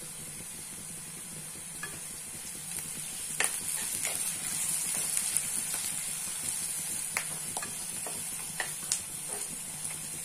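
Onions, peanuts and curry leaves sizzling in oil in a kadhai while a perforated metal spoon stirs them, clicking and scraping against the pan. The sizzle grows louder about three seconds in as the stirring starts.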